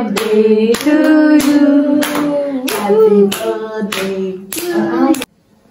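People singing long held notes, keeping time with hand claps about one and a half times a second; it cuts off abruptly near the end.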